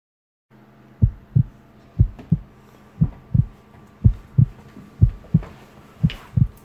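A heartbeat sound effect: after a brief silence, slow, deep double thumps (lub-dub) about once a second over a faint low hum.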